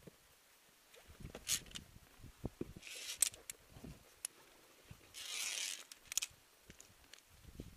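Via ferrata climbing gear and clothing rustling and scraping against limestone, with scattered sharp clicks of carabiners on the steel safety cable.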